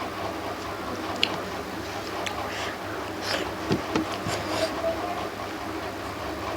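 Eating noises: a few short, sharp clicks and soft wet smacks of chewing a meal of rice and fish curry, over a steady low hum.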